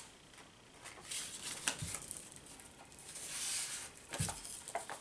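Paper being handled: journal pages and tucked cards rustling, with a few soft taps, one pair about two seconds in and another about four seconds in, and a longer rustle about three seconds in.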